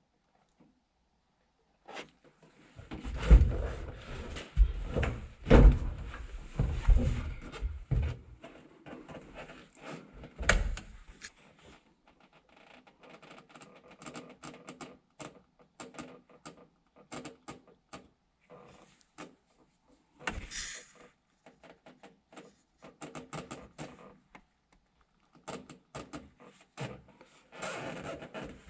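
Handling noises from hands working at a truck's instrument cluster: irregular knocks and thumps, heaviest from about three to eight seconds in, then lighter scattered clicks and a brief scrape about two-thirds of the way through.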